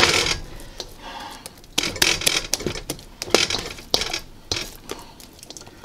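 Oiled bread dough being turned and pressed by hand in a stainless steel mixing bowl: soft wet slaps mixed with irregular sharp clicks and knocks of the metal bowl.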